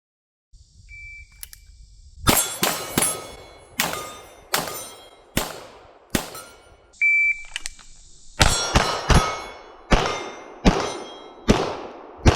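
A shot-timer beep, then seven pistol shots over about four seconds, with steel target plates ringing as they are hit. A second beep about seven seconds in starts another string of seven shots with more steel ringing.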